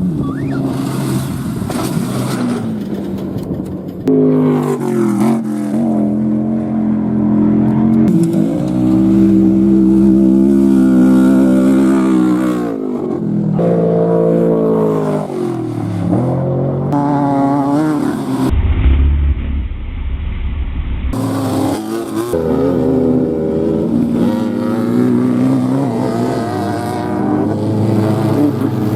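Off-road race vehicles' engines running hard and going by one after another, the engine pitch rising and falling as they accelerate and pass. The sound changes abruptly a few times, and there is a stretch of heavy low rumble about two-thirds of the way through.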